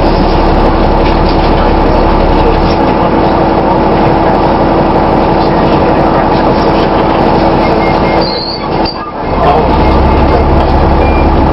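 Dennis Trident double-decker bus running, a loud steady mechanical drone with several held tones over a low hum. The sound drops away sharply for about a second around eight seconds in, then picks up again.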